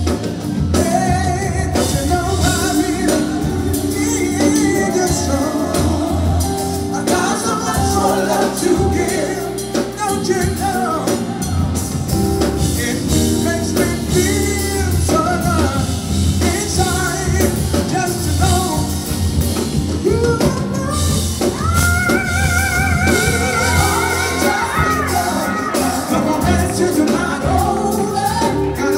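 Male R&B singer singing live into a handheld microphone, backed by a band of electric guitar, bass guitar, keyboard and drum kit. He holds several long notes near the end.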